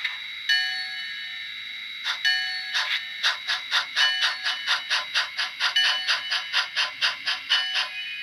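Sound decoder of a Bachmann On30 Climax model steam locomotive playing through its small onboard speaker: a single bell strike, then from about two seconds in a fast run of steam chuffs, about four a second, with the bell ringing over them, stopping near the end.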